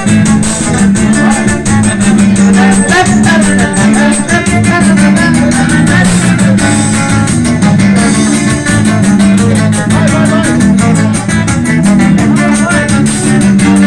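Live band music led by plucked strings such as guitar, over a steady quick beat, playing without a break.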